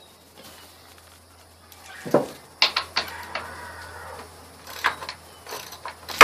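Ratchet wrench clicking and knocking against metal as the lag bolts of a gate hinge are worked loose: quiet at first, then a run of sharp clicks and clanks about two seconds in, the loudest knock near the end.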